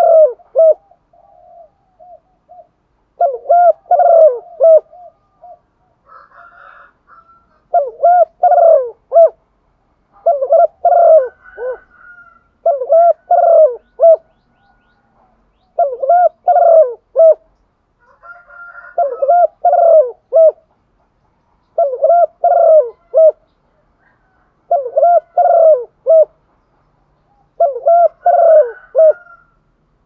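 Hen spotted dove cooing: a phrase of several coo notes about every three seconds, with fainter calls in between. It is the hen's call that keepers play to stir male doves into calling.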